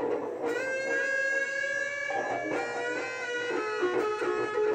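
Electric guitar played with long sustained notes: one note held from about half a second in until about two seconds, then a phrase of shorter notes.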